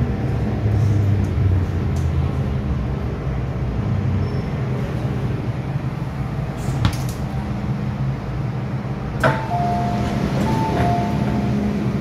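MTR M-Train running slowly into the station and stopping, heard from inside the car. About nine seconds in there is a sharp clunk as the doors release and slide open, followed by a short two-note electronic chime.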